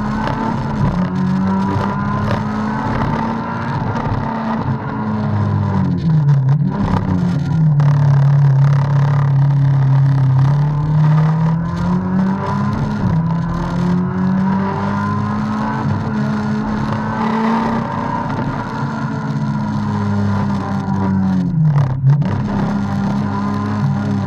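VW Golf 3 GTI 16V's 2.0-litre 16-valve four-cylinder engine running hard, heard from inside the cabin. The engine note drops about five seconds in, climbs back around halfway, and dips again near the end as the revs change through the slalom.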